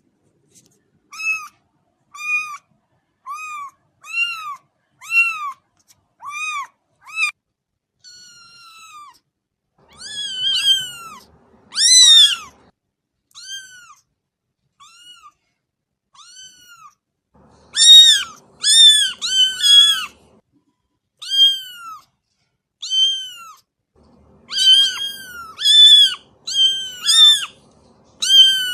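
Kittens mewing: a long run of short, high-pitched mews, each rising and falling in pitch, about one a second. They grow louder and overlap in bunches, as if several kittens are calling at once.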